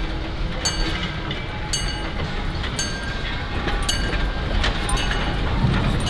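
Small 1891 T3 steam tank locomotive moving slowly, with a metallic clank that rings briefly about once a second over a steady rumble. The rumble grows louder near the end as the engine draws close.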